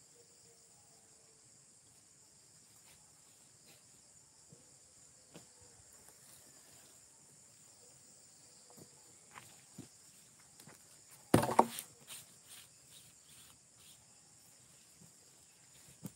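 Steady high-pitched insect chorus, like crickets, droning without a break. Scattered faint clicks over it, and a sharp double knock or rustle about two-thirds of the way through is the loudest sound.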